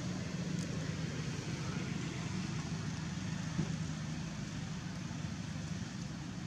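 Steady low mechanical hum with an even background rumble, holding constant throughout, and one faint tick about three and a half seconds in.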